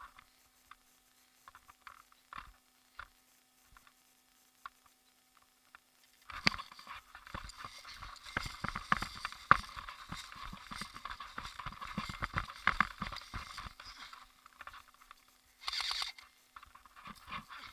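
Footsteps and crackling rustle of a person moving through dry brush and leaves, starting about six seconds in after a few scattered faint steps, with a short rushing burst near the end.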